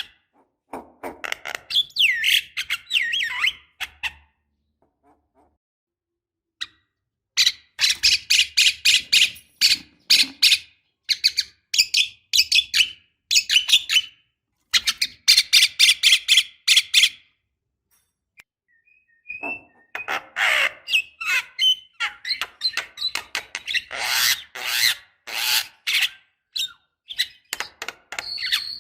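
Javan myna singing: bursts of fast, rapidly repeated chattering notes and whistles, breaking off twice for a couple of seconds.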